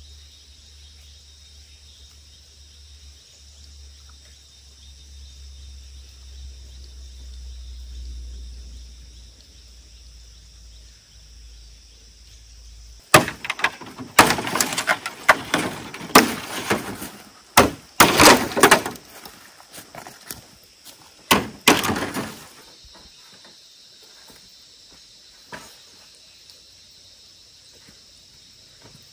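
A run of sharp knocks and cracks lasting about nine seconds, starting some thirteen seconds in, over a faint steady high hum; before it, only a low rumble.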